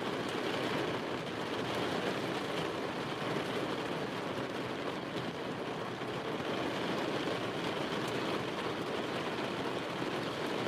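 Rain falling steadily on the roof and windows of a car, heard from inside the cabin.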